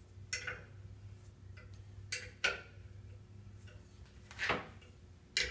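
A few sharp metallic clicks and clinks as steel tie rod parts are handled and fitted in a bench vise, over a faint steady hum.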